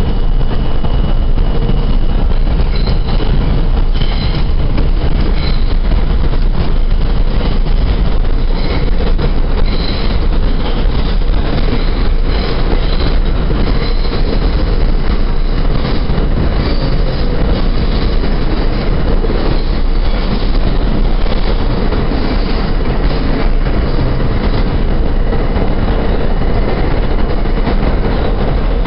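R32 subway car running through a tunnel, heard from inside the car: a loud, steady rumble and rattle of wheels on the track, with a thin high whine above it.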